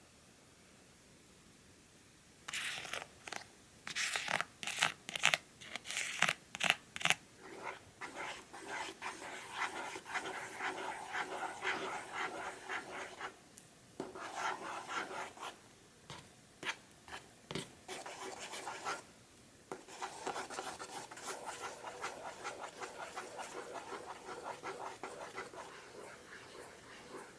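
A small plastic spoon stirring and scraping fast in a plastic Popin Cookin tray, mixing powder and water. It starts a few seconds in with sharp separate strokes, then runs on as quicker steady stirring, broken by two short pauses.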